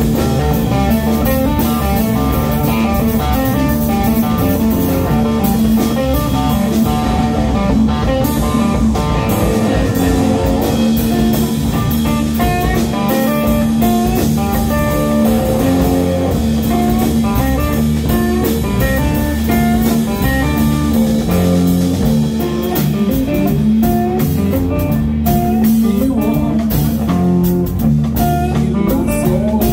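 Live blues-rock band playing two electric guitars over a drum kit, at a steady level throughout.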